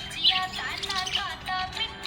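Budgerigar chirping and warbling: a quick run of short rising and falling chirps, several a second.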